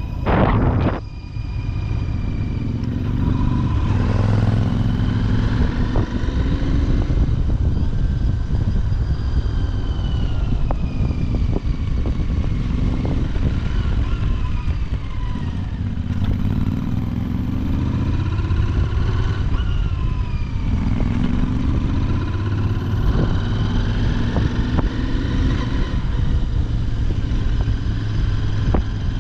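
Royal Enfield Continental GT650's 648 cc parallel-twin engine on the road through its stock exhaust, its pitch rising and falling again and again as the rider accelerates and eases off. A brief loud rush comes about a second in.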